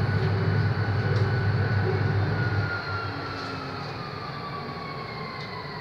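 Electric tram running on its rails: a low rumble that eases a little over halfway through, under a thin electric motor whine that slowly falls in pitch as the tram slows.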